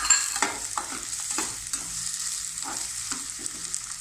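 Sliced vegetables sizzling in hot oil in a kadhai, stir-fried with a spatula that scrapes and knocks against the pan in irregular strokes, the loudest just at the start.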